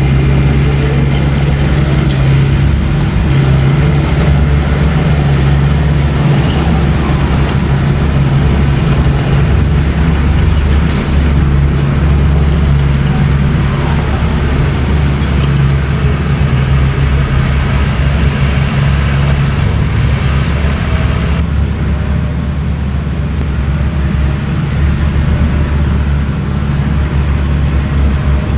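Bulldozer's diesel engine running steadily under load with a deep, constant drone, as the machine works the dirt.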